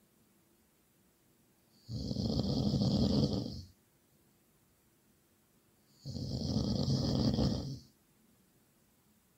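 Loud snoring: two long snores, each lasting nearly two seconds, about four seconds apart, with quiet pauses between them.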